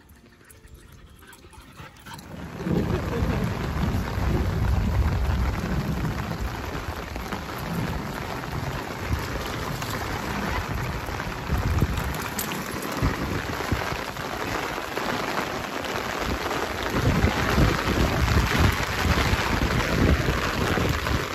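Steady heavy rain falling on a puddled dirt trail, with an uneven low rumble beneath it. It comes in suddenly about two seconds in, after a quieter start.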